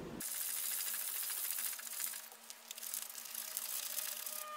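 Shimano Stella SW 18000 spinning reel being cranked as braided line is wound onto its spool through a cloth: a steady, fine rattling tick of the turning reel and the line rubbing. A faint falling whine comes in near the end.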